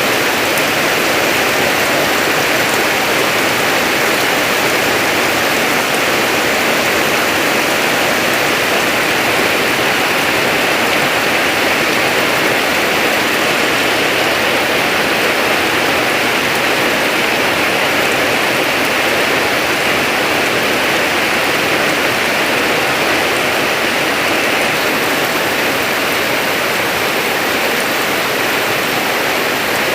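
Heavy rain falling steadily, a dense even hiss of water.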